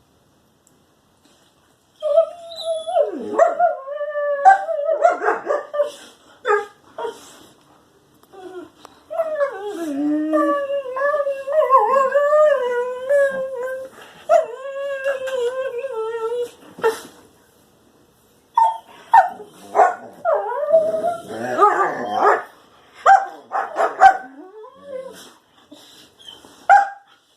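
A dog vocalising in wavering, pitched whines and howls, including one long drawn-out howl that wobbles in pitch, then breaking into a run of short yips and barks near the end.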